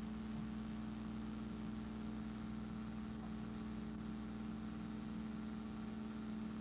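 Steady machine hum with a faint hiss, one low droning tone and its overtones held unchanged, with no speech or music.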